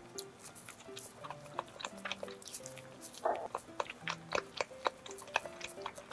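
Crisp crust of a blueberry-filled cream bun crackling and tearing as it is pulled apart by hand, many small sharp crackles with a longer rustle about three seconds in, over soft background music.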